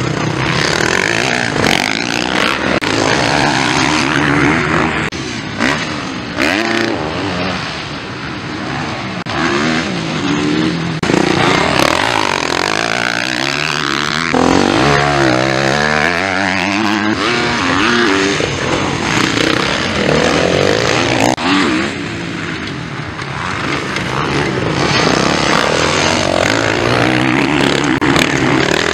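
Motocross bike engines revving hard as riders race, the pitch repeatedly rising and falling with throttle and gear changes.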